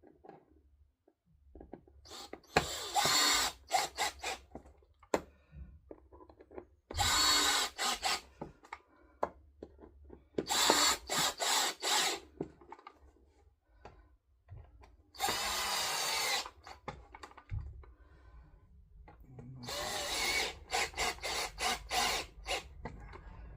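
A power drill-driver running in five short bursts of one to three seconds, driving in and tightening the screws of a motorcycle seat base, with its motor pitch shifting as each screw seats.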